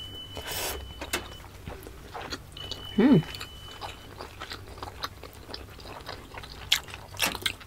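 Close-miked chewing of steamed siomai dumplings: soft, wet mouth clicks and smacks, with a short hummed "mm" about three seconds in.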